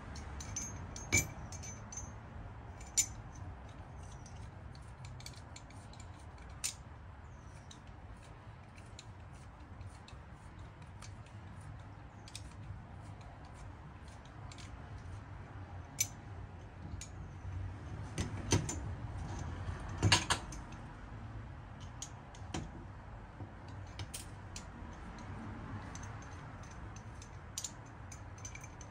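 Small steel parts of a jeweler's hand vise clicking and clinking as they are handled and fitted together during re-assembly, with scattered light ticks and a few sharper metal clinks, loudest about two-thirds of the way through.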